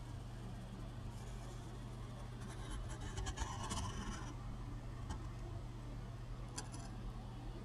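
Scratchy rustling and crinkling of a paper sandwich wrapper being handled, in a cluster from about one to four seconds in and again briefly near the end, over a steady low electrical hum.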